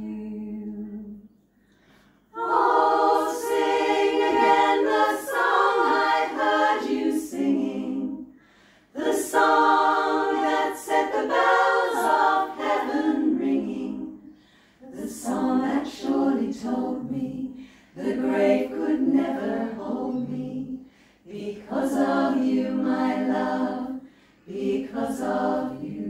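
Women's choir singing unaccompanied in several-part harmony. The song comes in phrases of a few seconds each, with short breaks for breath between them.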